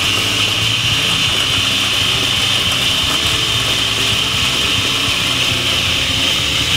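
Electric countertop food processor running continuously with a steady high whine, its blade chopping Oreo cookies into crumbs.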